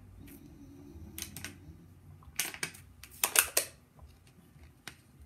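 A handful of short clicks and rustles in irregular clusters, the loudest cluster a little past halfway.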